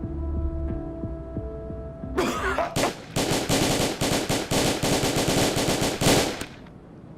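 A low throbbing hum like a heartbeat. About two seconds in comes a sudden outburst, which turns into a rapid, even run of sharp bangs, about six a second, like machine-gun fire. The bangs last some three and a half seconds and then stop abruptly.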